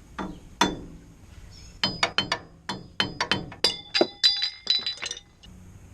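Sharp metal-on-metal taps with a short ringing tone, many in quick clusters: a sharp scraper driven like a chisel working the dust cover off a front wheel hub.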